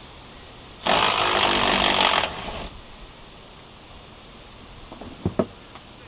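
Handheld power tool running in one burst of about a second and a half on the snowblower's wheel fastener, then tailing off briefly. Two sharp knocks follow near the end.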